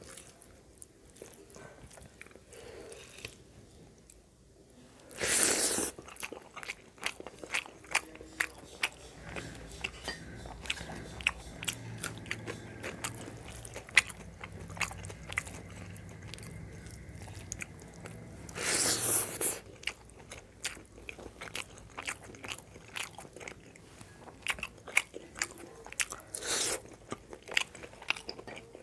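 Close-miked eating by hand: wet chewing and mouth clicks, with fingers squishing rice into curry gravy. Two louder, noisier bursts of about a second each stand out, about five seconds in and again near nineteen seconds.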